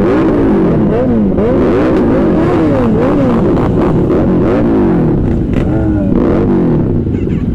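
Kawasaki ZX-10R's inline-four engine through a loud aftermarket exhaust, revved up and down over and over, its pitch climbing and dropping every half second or so.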